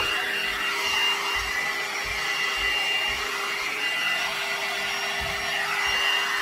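Hot air paddle dryer brush running, a steady rush of blown air with a faint constant whine, as it is used to dry hair.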